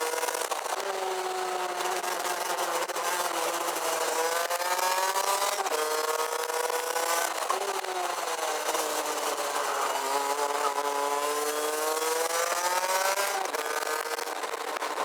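Rotax Max DD2 two-stroke kart engine heard onboard at racing speed: the revs climb, drop sharply about six seconds in and build again, then fall away and rise once more, dropping again near the end. A hiss of wind on the microphone runs under it.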